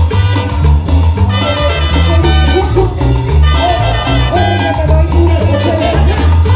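Live cumbia band playing, with a woman singing lead into a microphone over a steady bass pulse, drums and percussion, and trumpets.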